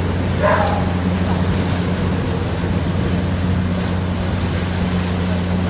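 GVB ferry's engine running at the pier, a steady low hum, over a hiss of wind and water.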